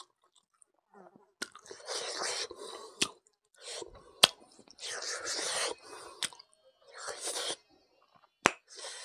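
Close-miked eating mouth sounds: a man sucking and licking chilli sauce off his fingers and chewing, in wet bursts with quiet gaps, punctuated by several sharp lip smacks.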